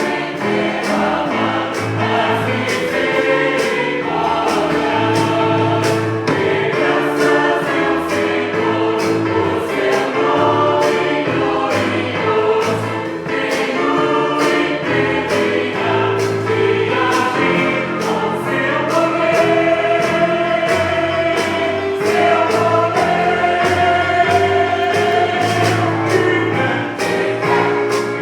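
Church choir singing a gospel cantata number in full harmony over instrumental accompaniment with a steady beat.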